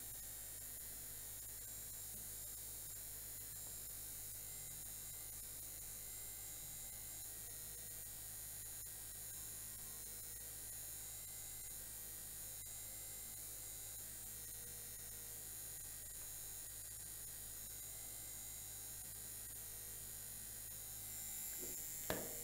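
Small electric fan running steadily, a quiet, even low hum.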